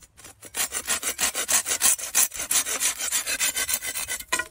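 Hand pruning saw cutting through a bamboo pole with quick, even strokes, several a second. The strokes stop near the end as the cut goes through, with a brief ringing note just before.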